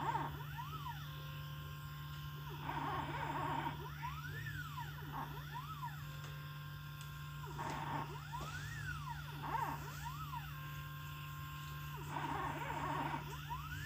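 Stepper motors of a small homemade CNC pen plotter whining as the pen traces PCB tracks, the pitch rising and falling in repeated arcs as the axes speed up and slow down, over a steady low hum.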